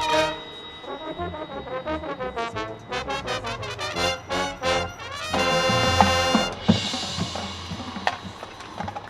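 Marching band brass section playing: a loud held chord cuts off at the start, then short, softer repeated notes build to another loud held chord about five and a half seconds in. After it, quieter playing with sharp percussion taps.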